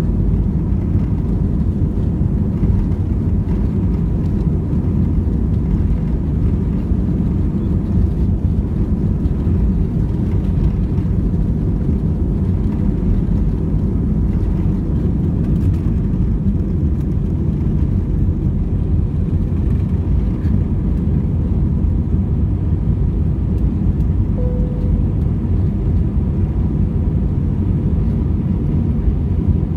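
Airbus airliner's jet engines at takeoff thrust, heard from inside the cabin: a steady, deep, even noise with runway rumble through the takeoff run, continuing unchanged as the aircraft lifts off and climbs.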